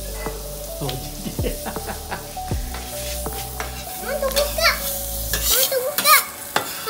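Burger patties sizzling in oil on a rocket stove's hotplate, with a spatula scraping and sliding under them in the last couple of seconds.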